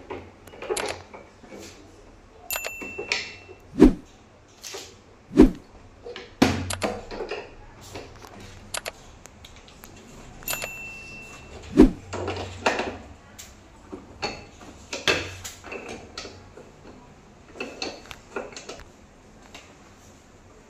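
Two wrenches clicking and knocking on a split AC's half-inch copper refrigerant pipe flare joint as its flare nut is tightened, with three heavier knocks and two short metallic pings.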